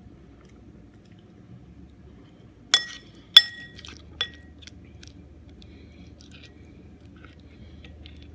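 Three ringing clinks of a utensil against a dish, about two-thirds of a second apart, the second the loudest.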